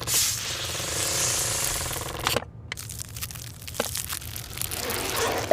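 A Coca-Cola being opened close up: a sudden hiss of escaping gas lasting about two seconds, then a fine crackling fizz of carbonation bubbles with scattered small pops.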